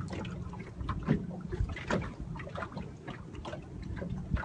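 Water slapping against the hull of a small boat, with a steady low wind rumble on the microphone and many short knocks and splashes.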